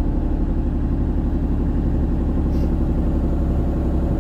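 Kubota mini excavator's diesel engine idling steadily at low idle, throttle turned down so the hydraulics run slow.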